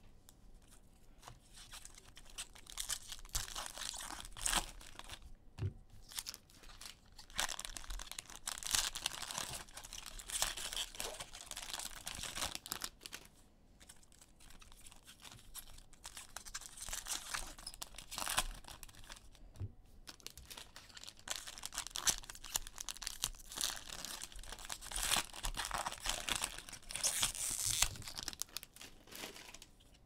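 Plastic cello wrappers of trading-card packs being torn open and crinkled, with cards handled in between; an irregular crackle that comes and goes.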